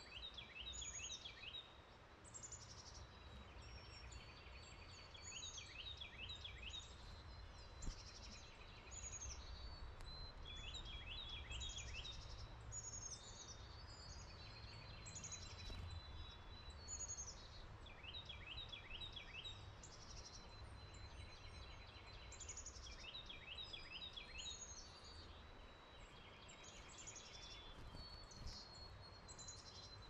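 Wild songbirds singing, several overlapping, each phrase a quick run of short falling notes repeated every second or two, over a faint low rumble.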